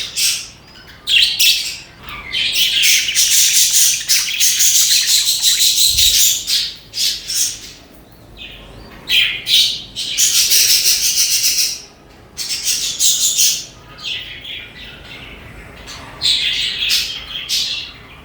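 A colony of budgerigars chirping and chattering, in busy stretches of a second to a few seconds broken by short lulls.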